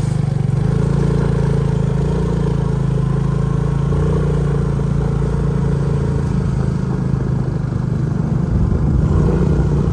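Motorcycle engine running steadily as the bike is ridden along.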